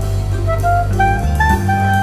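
Background jazz music: a saxophone-like melody over bass and drums.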